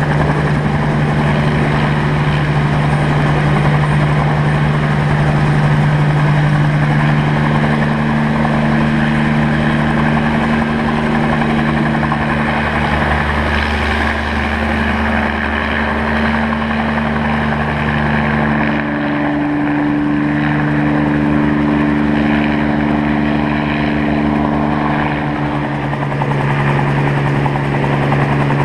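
Bell 47 G2 helicopters hovering: the piston engine and rotor run steadily and loud, and the engine note shifts in pitch about halfway through.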